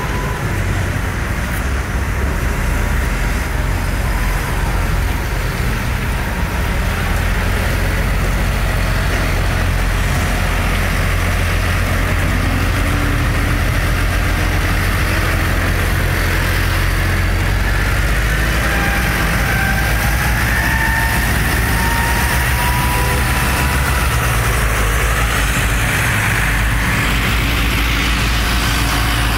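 Several large farm tractors' diesel engines running as they drive slowly past in a line, a steady deep sound. A whine rises in pitch about two-thirds of the way through.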